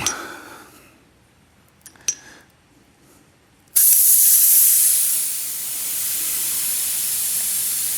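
A short click about two seconds in, then, a little before the four-second mark, a sudden loud hiss of compressed air begins and keeps going steadily.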